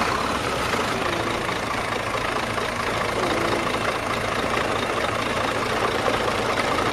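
An engine running steadily at low revs.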